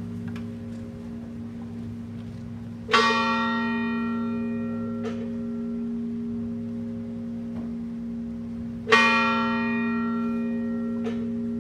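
A large church bell tolling slowly for a funeral, two strokes about six seconds apart, each ringing on and fading away.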